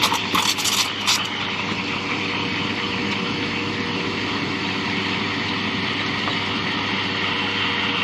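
Fracino commercial espresso machine running while a shot pours: a steady machine hum with a steady hiss over it. A few brief crackles come in the first second.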